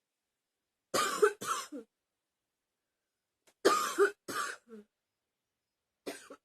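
A person coughing in three short fits of two coughs each, one roughly every two and a half seconds, with silence in between; the last fit starts near the end.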